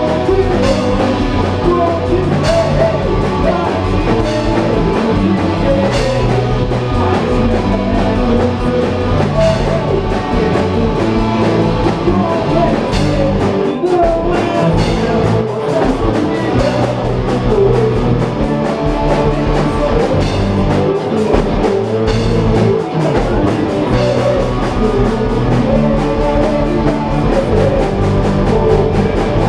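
Rock band playing a hardcore-style song: electric guitars, electric bass and a drum kit, with a sung vocal at times.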